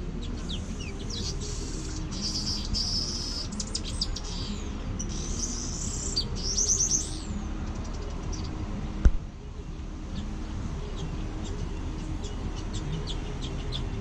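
Small birds chirping and trilling with quick high notes, busiest in the first half and thinning to scattered chirps later, over a steady low rumble. A single sharp knock about nine seconds in is the loudest sound.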